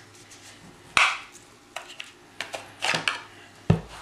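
A fixed-blade knife being drawn from its Kydex sheath: a sharp click about a second in as the sheath's retention lets go, then a few lighter clicks and short scrapes of the blade and sheath, and a dull thump near the end as the knife is set down on the table.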